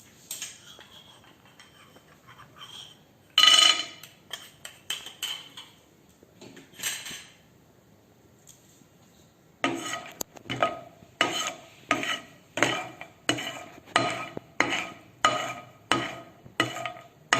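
A metal spoon stirring almonds frying in butter in a small pan: scattered clinks and one loud clank a few seconds in, then, from about ten seconds in, steady scraping strokes against the pan about two a second.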